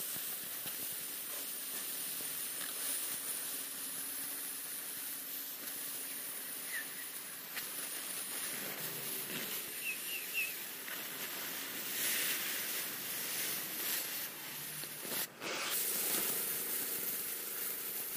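Oxy-fuel cutting torch hissing steadily as it burns through thick steel plate, with a short break in the hiss about fifteen seconds in.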